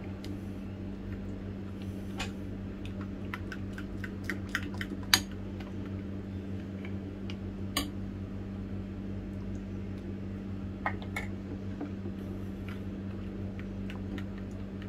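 A spoon stirring thick mayonnaise sauce in a ceramic bowl, clinking against the side at irregular moments, with a louder tap about five seconds in and another near eight seconds. A steady low hum runs underneath.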